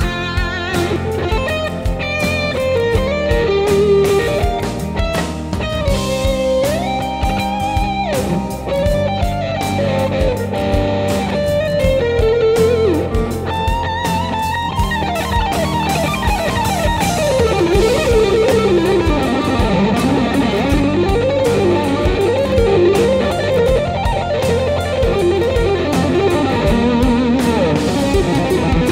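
Electric guitar solo over a rock backing track: held, bent lead notes in the first half, then fast runs sweeping up and down the neck from about halfway through.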